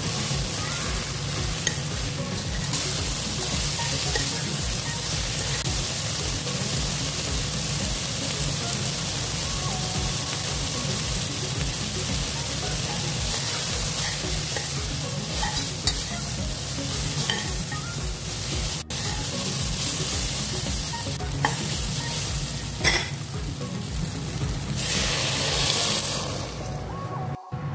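Soya chunks and vegetables frying and sizzling in oil in a stainless steel pressure cooker while being stirred, the spoon scraping and clicking against the pot. Near the end, water is poured into the pot.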